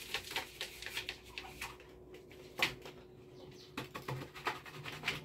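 Dry calabash gourd being handled: irregular light taps, knocks and clicks as it is turned over and a strap is tied around it, with one sharper knock about halfway through.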